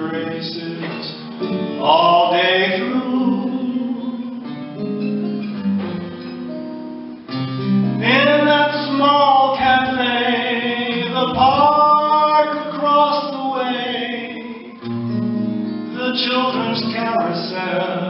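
A man singing a slow ballad while accompanying himself on an archtop guitar, with long held sung notes through the middle over quiet guitar chords.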